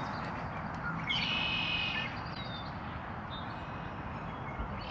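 A small songbird singing a bright, high trill about a second in, followed by a few thin chirps, over a steady outdoor hiss.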